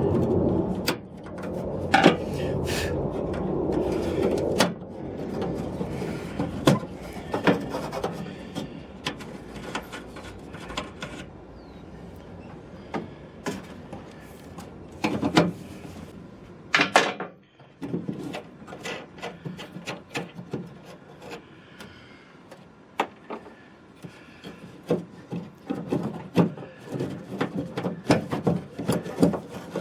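Hand tools and metal parts being worked inside a pickup tailgate while the lock mechanism is taken out: irregular clicks, taps and scraping, busier and louder in the first few seconds.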